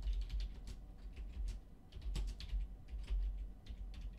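Typing on a computer keyboard: irregular keystroke clicks, over a low steady hum.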